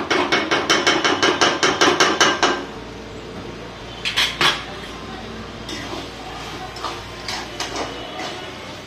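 A wooden spatula beats rapidly against a metal kadhai, about six knocks a second for two and a half seconds, mashing the onion-tomato masala into a thick gravy. Then come two sharper knocks and lighter taps and scrapes as the masala is stirred.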